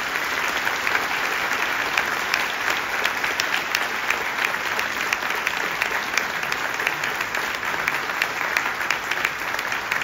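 Audience applauding steadily, many hands clapping at once.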